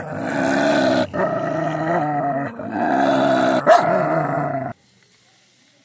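A dog growling in long, low, continuous rumbles, broken twice by short pauses for breath. It stops abruptly near the end.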